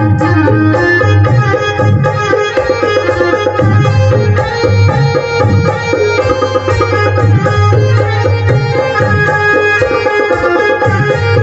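Live Uttarakhandi folk band music: a hand drum beats a quick, steady rhythm under a keyboard melody with held notes.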